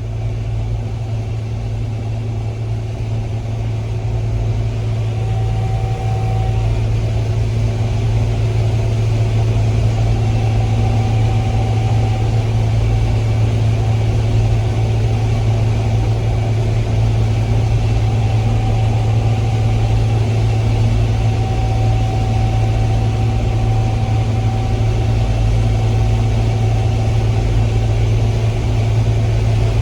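Combine harvester running steadily while harvesting corn: a continuous low engine drone with a faint whine that comes and goes above it.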